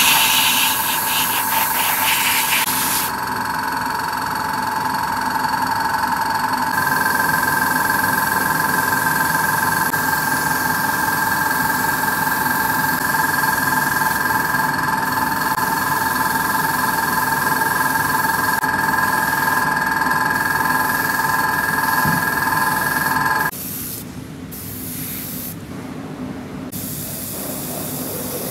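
Airbrush spraying paint: a steady hiss of air with a high whine under it. About 23 seconds in, the whine stops and a fainter hiss remains.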